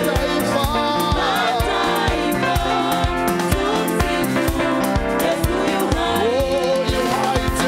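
Live gospel praise-and-worship music: a group of singers with keyboard accompaniment over a steady, regular beat.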